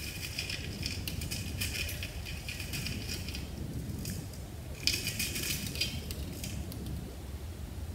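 Coarse sand grains rattling and sliding in a metal soil sieve as it is tipped to pour them out, a gritty crackle in two spells: through the first few seconds and again briefly about five seconds in.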